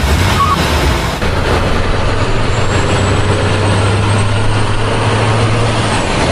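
Truck engine sound effect: a large truck's engine idling with a steady low drone.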